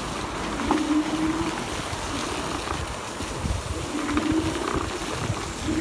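Electric scooter rattling and rumbling over a bumpy dirt trail, with irregular knocks from the jolts and wind buffeting the microphone. A short low hum rises out of the noise a few times.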